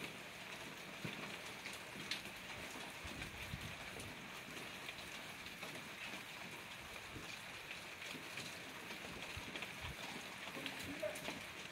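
Hail falling, a steady dense patter of many small ticks on the ground and nearby surfaces.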